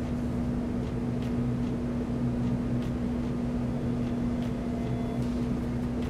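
Steady machine-like room hum with a constant low tone, as from ventilation or mains hum, and a few faint ticks.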